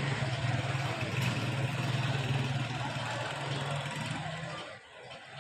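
A motor vehicle's engine running with a steady low hum, dying away about four and a half seconds in.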